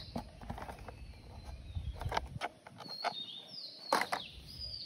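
Hard plastic toy vehicles knocking and clattering as they are handled and set down, a handful of short sharp knocks, the loudest about four seconds in. A bird calls faintly in the background with short high whistles.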